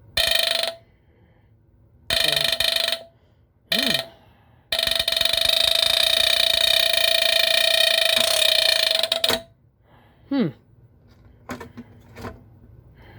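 The horn of a 1978 Westclox 83079 smoke alarm, run off a plug-in adapter instead of its 12.6 V battery, sounding in uneven bursts. It gives three short shrill squeals, then a steady squeal of about four and a half seconds that cuts off suddenly, then one brief chirp that drops in pitch. The owner says it didn't sound very healthy as it started up.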